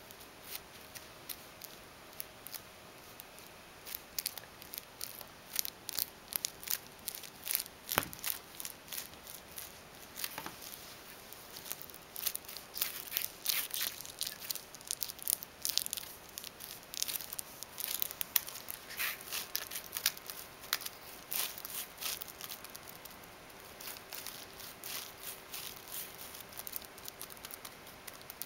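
A plastic drinking straw being wiggled and flicked close to a wooden floor: a stream of irregular light clicks and crinkles starting a few seconds in, with one sharper knock about eight seconds in.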